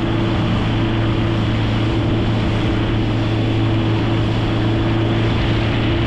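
Boat engine running steadily with a constant hum, under an even rush of wind and water noise.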